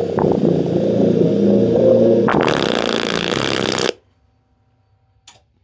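Loudspeaker driven loud as it'll go: a loud, distorted, raspy low buzz that about two seconds in breaks into a harsh crackling rasp across the whole range, then cuts off suddenly near four seconds as the speaker blows.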